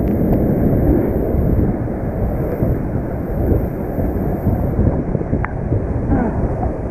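Whitewater rapids rushing loudly and steadily close around an inflatable kayak, with wind noise on the microphone.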